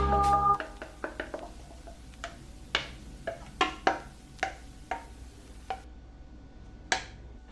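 Background piano music stops within the first second, followed by a series of irregular light clicks and taps of kitchen utensils on dishes.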